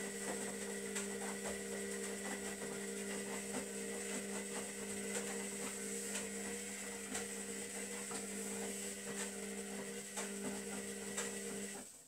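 Zanussi Lindo300 washing machine's drain pump humming steadily while pumping water out, with light gurgling clicks, then switching off abruptly near the end.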